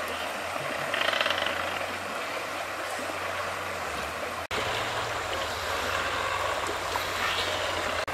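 Steady rushing of a shallow river flowing over rocks, with a low steady hum underneath; the sound breaks off for an instant about halfway through, then carries on much the same.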